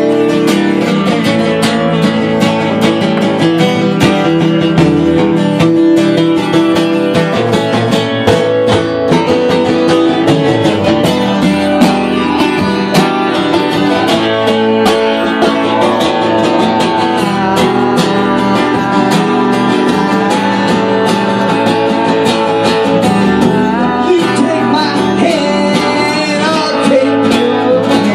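Acoustic guitars strummed together in a steady live duet.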